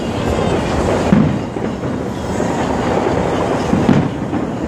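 Aerial fireworks barrage: a continuous rumble of overlapping bursts and crackle, with heavier booms about a second in and again near the end.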